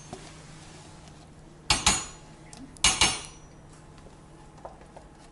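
Metal spoon knocking against the rim of a stainless steel pot, a few sharp clinks with a short ring: two close together under two seconds in and another about three seconds in, as sour cream is knocked off the spoon.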